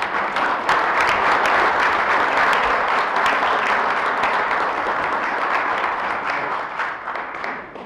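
Banquet audience applauding, dense clapping that holds steady and dies away near the end.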